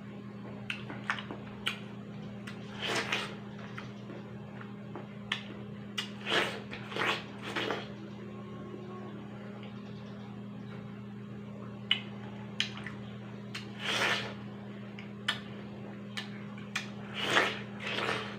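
Watermelon being bitten and chewed close to the mouth: several short juicy bites and slurps, with sharp wet mouth clicks between them, over a steady low electrical hum.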